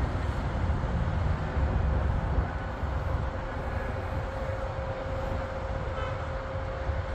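Business jet's turbofan engines rumbling, with a steady high whine, as the jet lands and rolls out on the runway.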